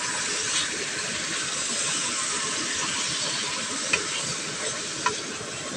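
Pork belly cubes sizzling in hot oil in a wide metal pan, a steady frying hiss, while a wooden spatula stirs them. Two sharp ticks in the second half.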